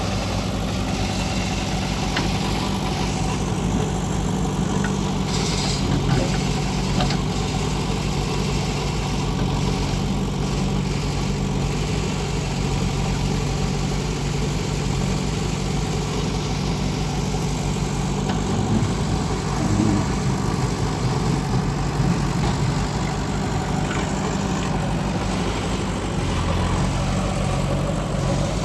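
Diesel engine of a JCB 3DX backhoe loader running steadily, with a few brief knocks, loudest about six and twenty seconds in.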